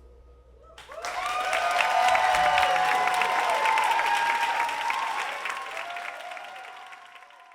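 Live audience applause with shouted cheers, starting suddenly about a second in as the song's last held note dies away, then fading out near the end.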